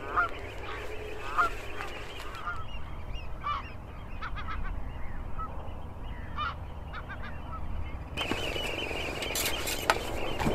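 Geese honking, repeated short calls over a steady low rumble. About eight seconds in this gives way to rustling and a few knocks of camping gear being packed.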